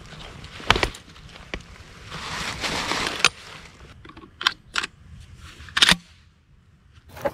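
Sharp metallic clicks of a shotgun being handled and loaded, a handful spread over several seconds, with a burst of rustling of clothing and dry leaves early on.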